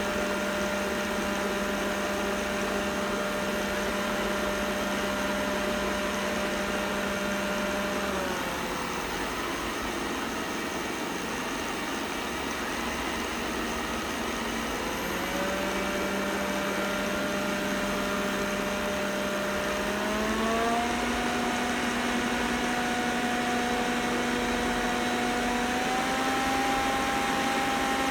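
Roborock S6 robot vacuum running with a steady buzzing hum, picked up by a phone lying on the robot's body. The buzz glides down and fades about eight seconds in, glides back up a few seconds later, and then steps up in pitch twice. It is the buzzing noise the owner is documenting.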